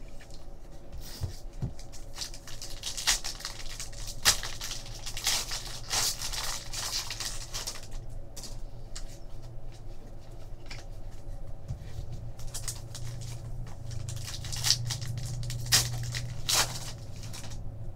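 A foil trading-card pack wrapper crinkling and tearing open, with cards sliding against each other in the hands. Sharp crackles cluster a few seconds in and again near the end, over a low steady hum.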